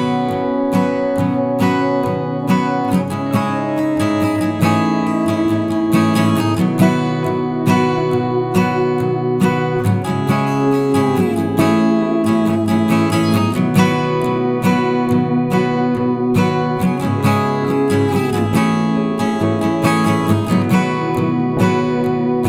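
Background music played on acoustic guitar, plucked and strummed at a steady pace, with occasional sliding notes.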